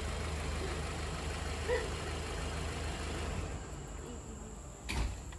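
Subaru Outback's flat-four engine idling, a low even hum with a hiss over it that fades away about three and a half seconds in. A single knock near the end.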